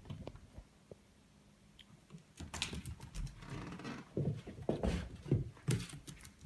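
Chihuahua puppy's claws clicking and paws scrabbling and thumping on a hardwood floor as it runs and turns. The quick, uneven patter starts about two and a half seconds in and is busiest near the end.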